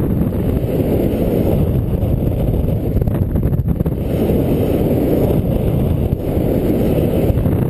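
Wind rushing over the microphone of a camera carried by a paraglider in flight, a steady, loud low rumble.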